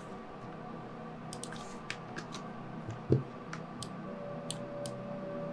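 Computer mouse and keyboard clicks, scattered and irregular, over a steady low electrical hum. A single low thump about three seconds in is the loudest sound.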